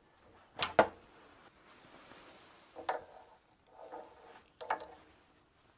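Sharp clicks and knocks as bicycle pedals are handled and fitted to the cranks: a loud double knock about half a second in, then a few softer clicks.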